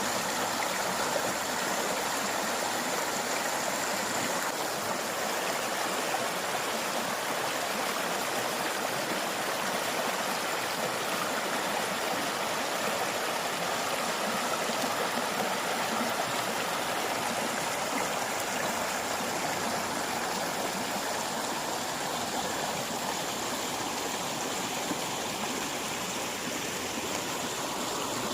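River water flowing steadily: an even, unbroken rushing of moving water.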